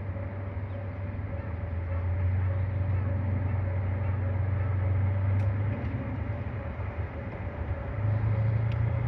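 Diesel train engine running at a steady low drone with a faint whine above it; the drone falls away about six seconds in and returns at a higher pitch near the end as the engine revs up.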